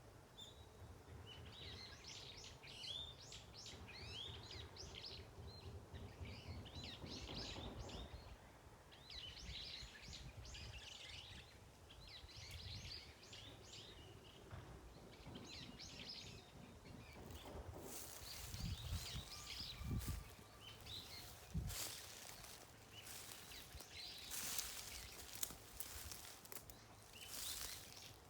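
Small birds chirping and twittering in short repeated phrases, faint. About two-thirds of the way through, close rustling and a few low knocks take over and cover the birdsong.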